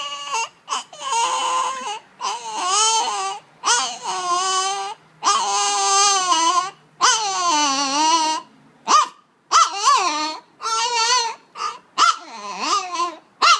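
An old long-haired Chihuahua giving a string of drawn-out whining cries with a wavering pitch, each about a second long, then a run of shorter yelping whines over the last few seconds. This is her attention-demanding noise.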